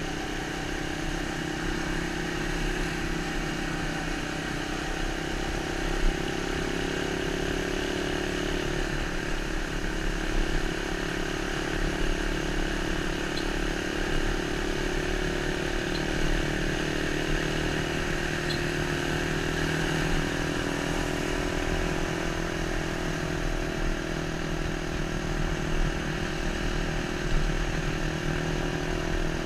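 Motorcycle engine running steadily while riding, its pitch drifting a little, under a constant rush of wind and road noise, as picked up by a GoPro Hero 3+'s internal microphone. A couple of brief knocks stand out, one about six seconds in and one near the end.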